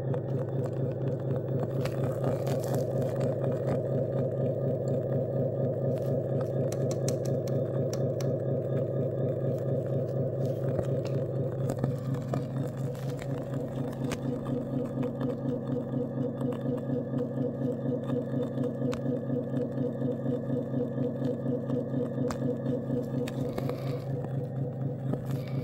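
Simulated diesel engine idling from the sound unit of a 1/14-scale Fury Bear IVECO RC dump truck: a steady, evenly pulsing idle whose tone shifts about halfway through.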